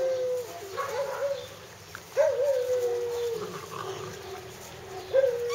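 Hungarian Vizsla puppy whining: a couple of short whines about a second in, then a long whine that slowly falls in pitch, and another long whine starting near the end.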